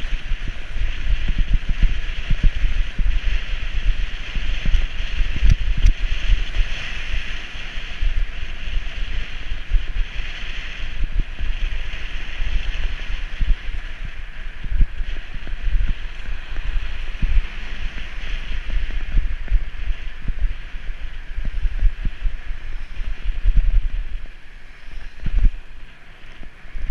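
Wind buffeting the microphone of a cyclist's camera while riding, a gusty low rumble over a steady hiss of road and air noise, easing briefly near the end.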